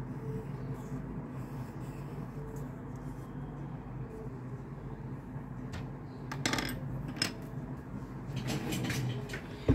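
Pencil drawing on a sheet of paper on a hard tabletop, then a few light clicks and rustles as the pencil and paper are handled, and one sharp click just before the end. A steady low hum runs underneath.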